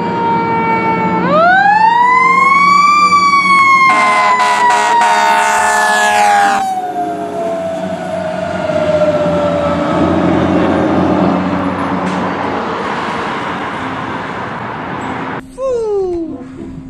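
Fire engine siren winding up and then slowly coasting down in pitch, with a horn blaring for a few seconds near the start. Truck and road noise run underneath, and the sound cuts off abruptly near the end.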